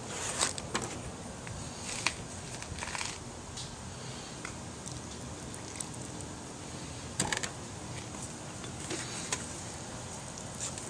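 Scattered light knocks and scrapes as Satanite refractory coating powder is mixed with water in a plastic bowl and stirred with a thin stick; the sharpest knocks come about half a second in, near two seconds, and about seven seconds in.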